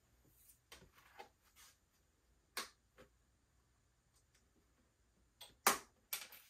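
A few short, faint rustles and taps of large sheets of paper being picked up and handled on a table, the loudest near the end, over quiet room tone.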